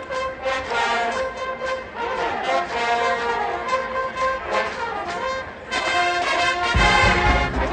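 Marching band playing, its brass section with sousaphones sounding held chords. About six seconds in it gets louder and deep low beats come in.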